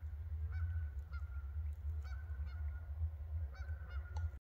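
Geese honking in a string of short calls, about six over a few seconds, over a steady low rumble. The sound cuts off suddenly near the end.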